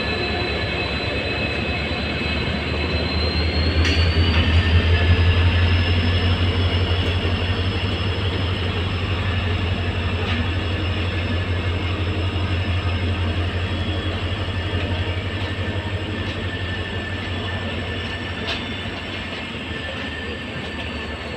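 EMD diesel locomotive's two-stroke engine running loud, with a deep steady drone and a high whine. About four seconds in the engine swells louder and the whine climbs in pitch, then both ease back near the end.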